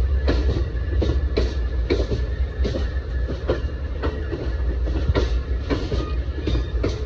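Amtrak Northeast Regional passenger train running on the rails: a steady low rumble with wheels clicking over the track, about two to three uneven clicks a second.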